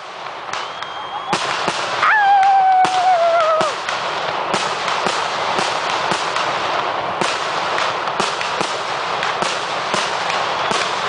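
Aerial fireworks going off in quick succession: many sharp bangs and crackles over a steady wash of noise, with a long, slowly falling tone about two seconds in.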